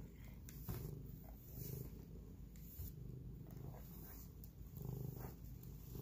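Domestic tabby cat purring close to the microphone, a low rumble that swells and fades every second or two, with a few faint clicks.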